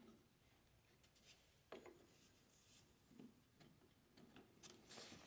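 Near silence with a few faint clicks and taps: parts of a golf caddy cart's handle joint being handled and lined up.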